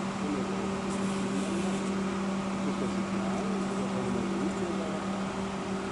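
Steady machinery hum: a constant low drone with a weaker higher tone above it, running at an even level.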